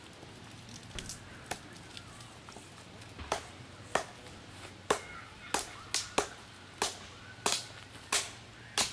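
Axe chopping firewood on a stump chopping block: a series of sharp woody knocks, a couple at first and then a steady run of strikes roughly one to two a second from about three seconds in.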